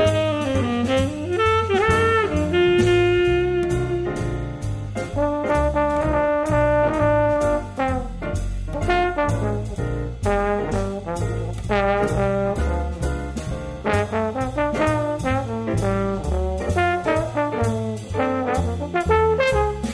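Background jazz music with brass instruments over a steady beat and a stepping bass line.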